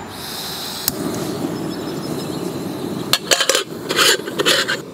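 Backpacking butane canister stove being started: a steady gas hiss with one sharp click about a second in. In the last two seconds comes a quick run of metallic clinks and clanks.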